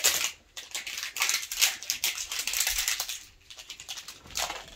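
Plastic Mini Brands packaging crinkling and tearing as it is opened by hand, in dense rustling bursts through the first three seconds, then one more short crackle near the end.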